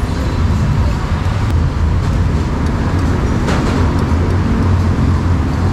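Steady low rumble of road traffic, with a single sharp clack about three and a half seconds in.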